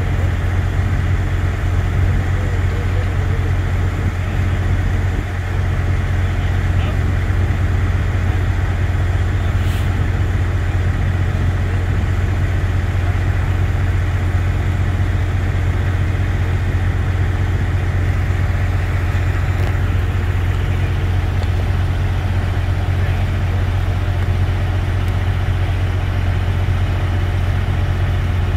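Heavy diesel engine running steadily at idle, a low, even drone that does not change.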